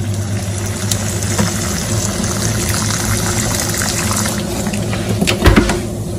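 Water at a rolling boil in a saucepan: a steady bubbling hiss. A few sharp knocks come about five and a half seconds in.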